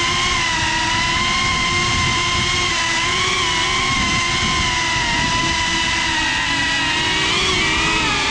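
Brushless motors and propellers of a GEPRC CineLog 35 FPV cinewhoop drone whining steadily, picked up by the GoPro riding on the drone itself. The pitch wavers with throttle and dips briefly near the end.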